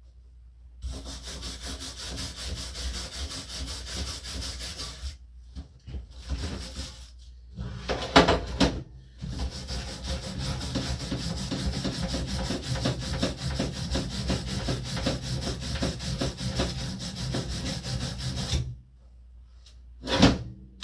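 Steel wire brush scrubbing hard across fresh MIG welds on steel, in long runs of quick scratchy strokes. A few loud sharp knocks come about eight seconds in.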